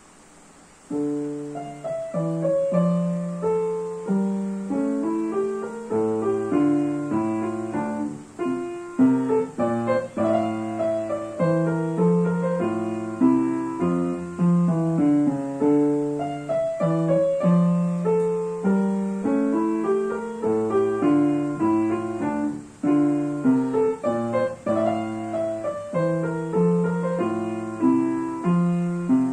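Upright piano playing a march in D minor: a steady run of single notes and chords, beginning about a second in.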